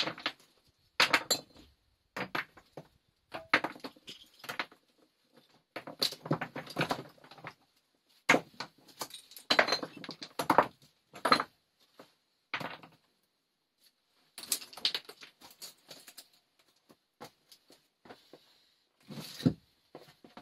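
Stones clinking and clattering against each other in short irregular bursts, separated by brief pauses, as rocks are handled and set down.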